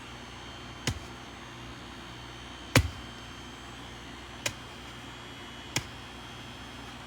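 Four short, sharp knocks or clicks over a steady faint hiss, spaced roughly one and a half to two seconds apart, the second the loudest.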